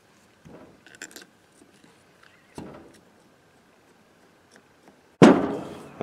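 Faint clicks and taps of metal parts on an excavator pilot control joystick being handled, then one loud thunk about five seconds in as the heavy joystick housing is set down on the work surface.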